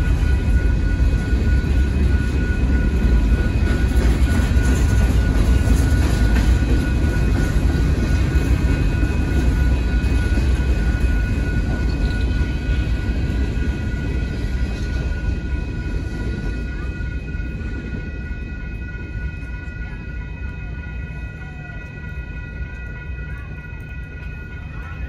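Freight train boxcars rolling slowly over the crossing, a steady low rumble of wheels on rail that fades away over the last several seconds as the final car clears. A railroad crossing bell rings steadily throughout.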